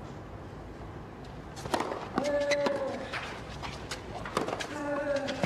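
Tennis rally: racket strikes on the ball, each followed by a short, steady grunt from a player, twice.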